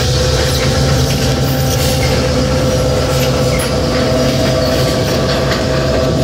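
EMD GP7 diesel locomotive's two-stroke V16 engine running under load as it pulls a train, a loud, steady drone with a steady whine above it and rail noise.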